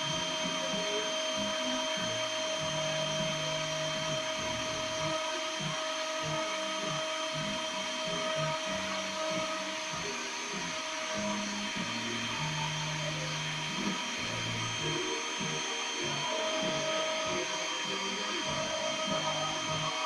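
CNC milling machine cutting a circuit board: the spindle's steady high whine, with stepper motors humming low tones that jump to new pitches every second or so as the axes move.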